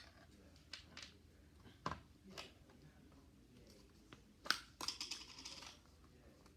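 Faint scattered taps and clicks of hands working Play-Doh and modeling tools on a tabletop, with a sharper tap about four and a half seconds in followed by a brief soft rustle.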